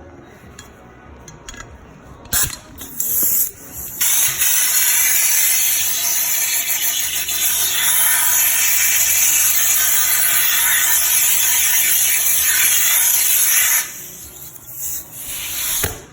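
Compressed-air blow gun hissing: two short blasts, then one long steady blast of about ten seconds, blowing dirt away from the fuel tank's sending-unit lock ring.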